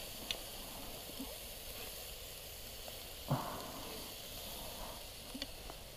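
Meat sizzling on a small wire grill, a steady faint hiss with a few small crackles, and one soft knock about three seconds in.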